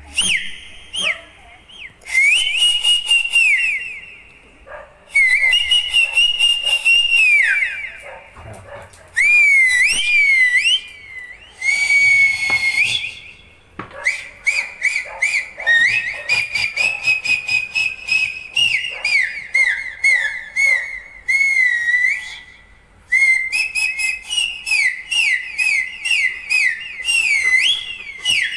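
High whistling in quick chirps, sweeps and trills, set in phrases of one to several seconds with short breaks between them.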